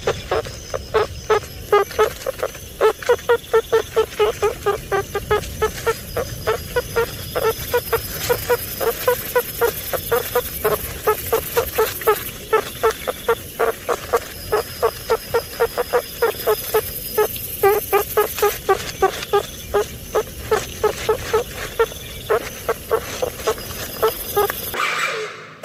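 Meerkats calling: a long, rapid series of short, pitched peeps, about four a second, with a few faint steady high tones behind.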